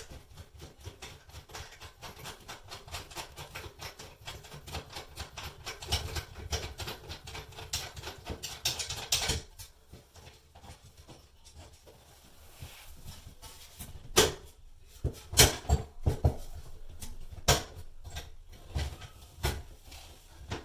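A long molly bolt being threaded by hand into its anchor in drywall: rapid small scratching clicks of metal on metal for the first nine seconds or so. After a quieter stretch come several separate sharp clicks and knocks of the hardware, the loudest sounds here.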